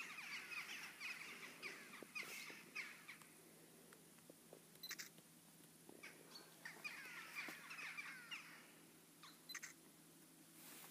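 A flock of birds calling faintly: many short, overlapping, falling calls in two bursts, one in the first three seconds and another about seven seconds in, with a few soft clicks between.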